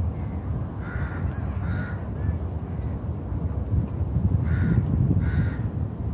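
A crow cawing: four short, harsh caws in two pairs, over a steady low rumble.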